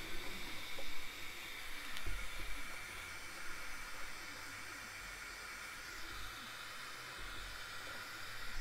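Titan electric heat gun running, a steady soft hiss of blown air with a faint whine, as it heats a glued-on chrome badge on a car's boot lid.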